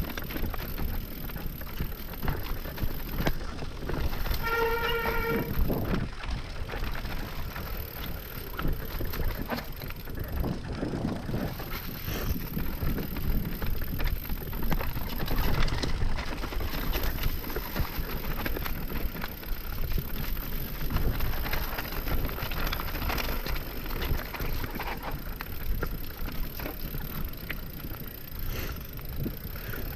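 Mountain bike descending a dirt trail on WTB Vigilante (front) and Trail Boss (rear) knobby tyres: steady rough rolling noise with constant small knocks and rattles from the bike over the ground. A short high pitched tone sounds once, about four to five seconds in.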